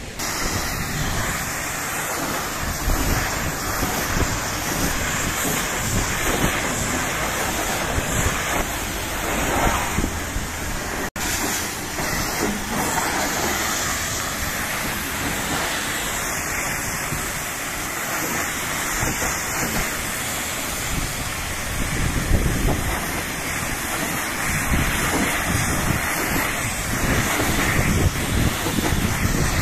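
High-pressure washer jet spraying water onto a truck's cargo body panels and wheels: a loud, steady hiss of spray with splashing, which cuts out for an instant about eleven seconds in.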